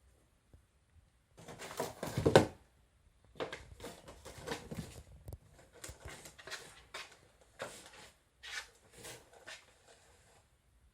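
Cats scrambling: paws and claws scrabbling and knocking on a hard surface, with a loud clattering thump about two seconds in and a run of shorter scratches and taps after it.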